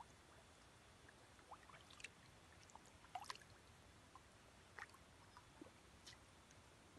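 Faint, scattered little plops and smacks at the water surface, a handful over several seconds: koi sucking floating feed pellets from the surface.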